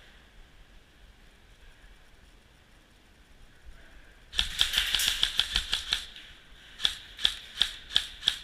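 Airsoft gun firing: a rapid burst of shots about four seconds in, then single shots about three a second near the end.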